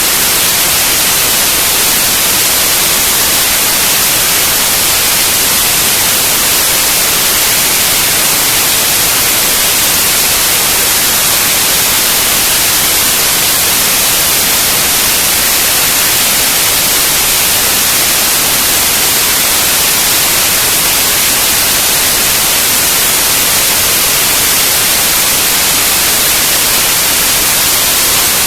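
Loud, steady static hiss, even and unchanging throughout, with no engine note or other sound standing out of it.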